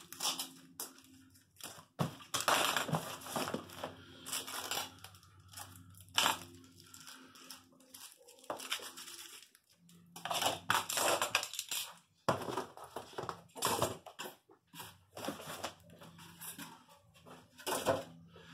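Packing tape being pulled off a roll and pressed onto a cardboard box, in a series of irregular rips, with cardboard scraping and crinkling between them.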